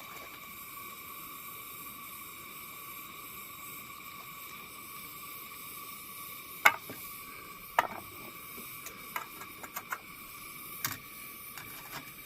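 Steady hiss of a Coleman 502A pressurized white-gas camp stove burning under a frying pan of butter, with a faint steady whine in the hiss. From about halfway through come several sharp clicks, the first the loudest.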